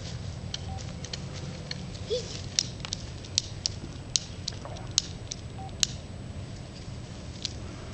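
A run of sharp clicks, the loudest five evenly spaced about 0.8 s apart from about two and a half seconds in to about six seconds, over a steady low rumble, with a few faint short chirps.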